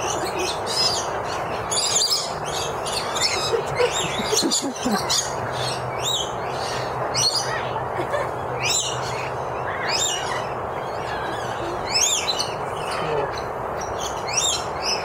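A flock of birds calling close by: many rapid, overlapping high chirps over a steady background hum.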